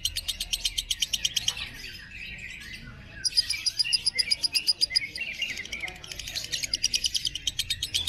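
Lovebird singing ngekek: long strings of fast, sharp chirps, about a dozen a second. The strings break off about two seconds in, resume loudly about a second later, ease off briefly near six seconds, and pick up again.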